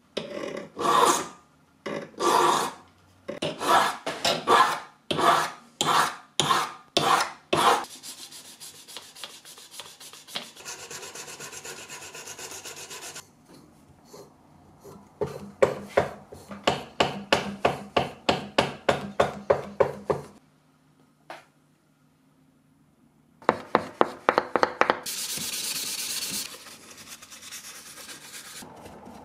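A hand file scraping back and forth along the edge of a brass knife blade to put a small edge on it, in separate strokes. Later comes a faster run of short rubbing strokes with a hand-held block on the blade, then a brief steady rubbing hiss.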